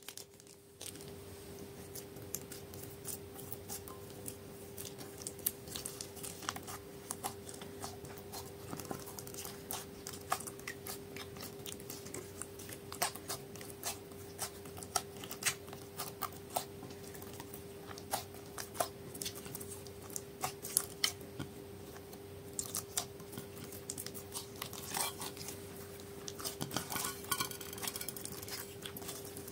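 Slime with beads and glitter mixed in, squished and kneaded by hand, giving irregular crackling, popping clicks that grow denser near the end. A faint steady hum runs underneath.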